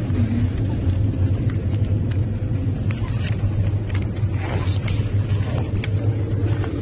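Steady low rumble of a moving bus heard from inside the passenger cabin: engine and road noise, with a faint steady whine and a few light rattles.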